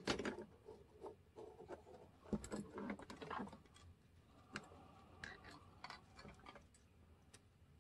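Faint handling noises of small parts: scattered light clicks and brief rubbing, with no steady sound between them.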